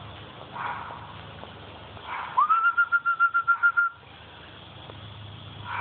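A high whistled note, rising quickly and then held for about a second and a half with a rapid warble of about seven pulses a second.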